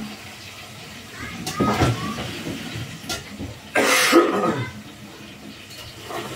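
A man coughs into his hand about four seconds in: one harsh, loud cough, the loudest sound here.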